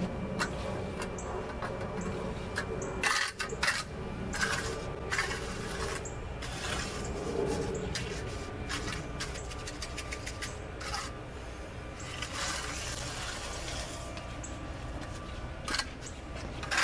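Hand trowel scraping and smoothing wet concrete in a driveway trench, in irregular strokes, with a cluster of louder scrapes a few seconds in and again near the end.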